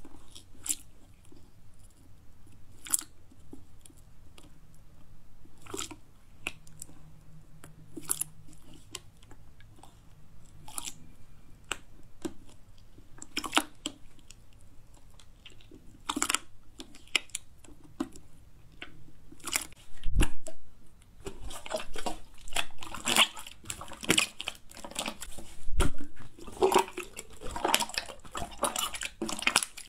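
Hands squeezing, poking and stretching a thick white slime: scattered sticky clicks and squelches, becoming a dense, louder run of clicks and pops about two-thirds of the way through as the slime is pulled and spread out.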